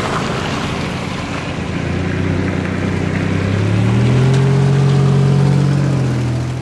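Cars driving over a railway crossing on a wet road, tyres hissing; an SUV's engine rises in pitch as it accelerates toward the microphone and is loudest as it passes close by near the end.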